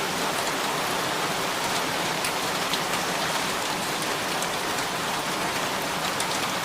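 Heavy, steady rain falling and splashing on surfaces, with scattered individual drop ticks, from cyclone rainfall.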